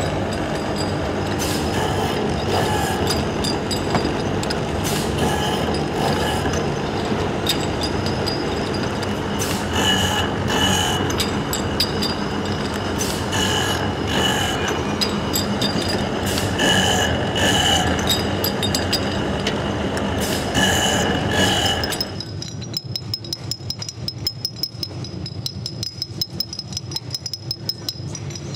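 Electric-motor-driven grinding machine running, with repeated grinding bursts as brake shoe friction linings are pressed against it to shape them. About 22 s in the machine noise stops abruptly, giving way to a quieter run of rapid light clicks.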